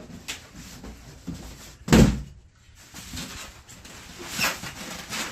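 A boxed PC case being turned upside down and set down with one heavy thump about two seconds in, followed by softer scraping and handling noises of the box and packing.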